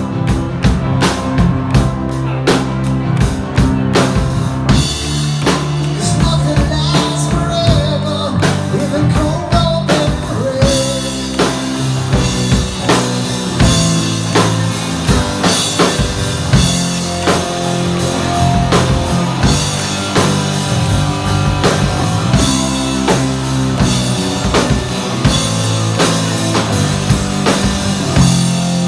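Rock music with a drum kit and guitar, with a voice singing in the first part.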